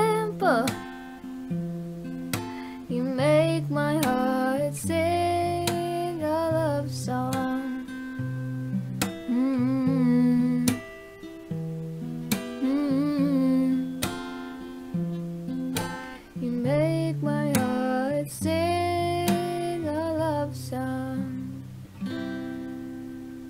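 A woman singing with a strummed acoustic guitar accompaniment, ending on a last chord that rings and fades out.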